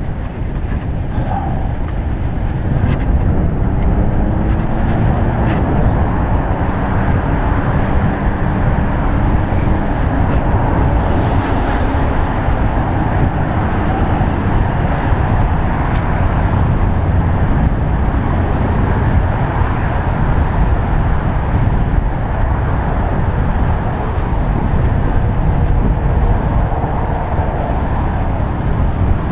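Steady, loud rushing of wind over an action camera's microphone on a moving bicycle, mixed with the noise of road traffic.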